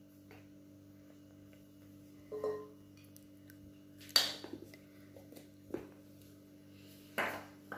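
Kitchen utensils clinking against dishes while seasoning is added to minced meat: four short clinks, the loudest about halfway through, over a steady low hum.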